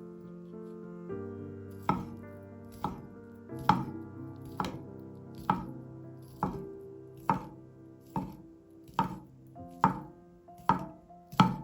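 Knife chopping on a cutting board in slow, fairly even strokes, about one a second, starting about two seconds in. Background music plays throughout.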